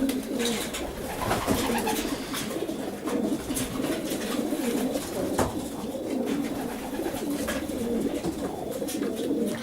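Racing pigeons cooing together in an enclosed space, a continuous low warbling chorus with scattered short clicks.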